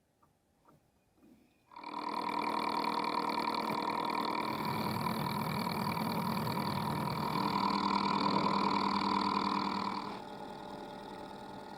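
A manual metalworking machine tool starts up suddenly about two seconds in and runs with a steady whine of several tones. Near the end it drops to a noticeably lower level but keeps running.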